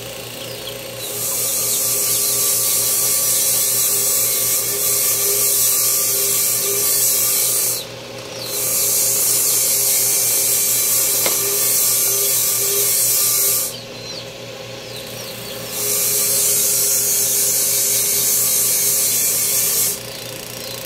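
Power tool running steadily, with a harsh hiss as it works the surface in three passes of about six seconds each. Between the passes only the motor's hum remains.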